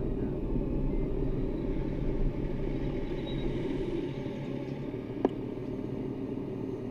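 Honda Gold Wing motorcycle engine running steadily at low speed and settling a little quieter about four seconds in as the bike comes to a stop in traffic. A single sharp click sounds about five seconds in.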